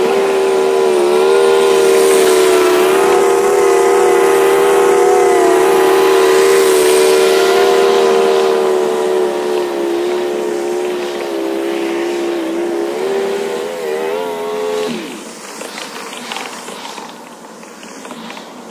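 Bradley 32-inch commercial stand-on mower's engine running steadily at full throttle while mowing, its pitch wavering slightly. About fifteen seconds in the engine note drops and fades as it winds down.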